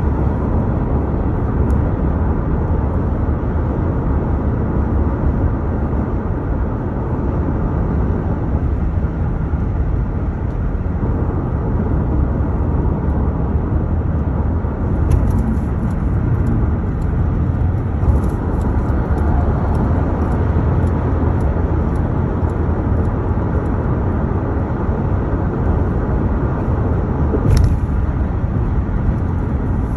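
Steady low rumble of road and engine noise from a car cruising at freeway speed, heard from inside the cabin. A few light clicks come through, the sharpest near the end.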